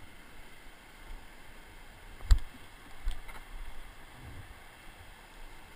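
Footsteps on a rocky trail with a hiking stick knocking against stones. The sharpest knock comes a little past two seconds in, with lighter knocks and thuds after it.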